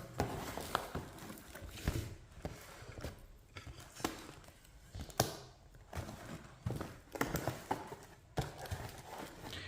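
Packaging being handled during the unboxing of an instant water heater: irregular rustling with scattered taps and knocks.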